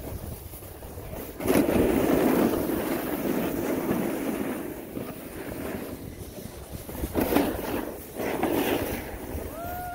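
Skis sliding and scraping over packed snow, with wind buffeting the microphone. The scraping comes in surges, the loudest from about one and a half to four seconds in.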